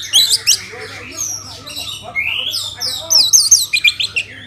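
Orange-headed thrush singing: a fast, varied run of whistled notes and chirps with sharp up- and down-slurs. It is loudest in bursts near the start and again about three seconds in.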